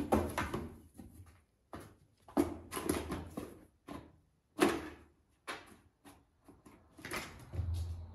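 A cat pouncing on and shoving a cardboard box, with paws scrambling on the floor. It comes as an irregular run of sudden knocks, thumps and scrapes.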